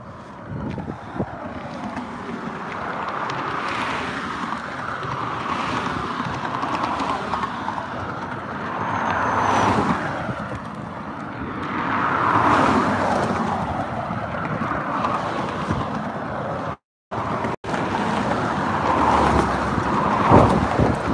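Road traffic: cars passing close by one after another, each a rush of tyre and engine noise that swells and fades, the loudest passes about ten and twelve seconds in and again near the end. The sound cuts out completely for a moment about seventeen seconds in.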